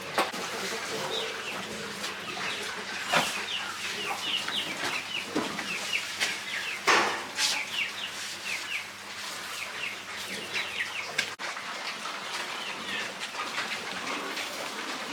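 Chickens clucking, with many short high chirps running several a second and a few louder sharp calls in among them.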